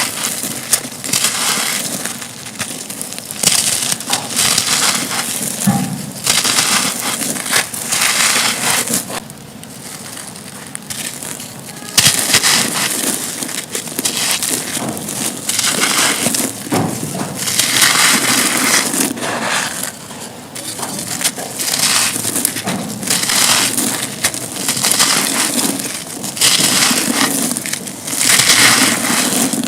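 Dry, dusty concrete chunks being crushed and crumbled, a dense gritty crunching that comes in surges every second or two, easing for a few seconds midway.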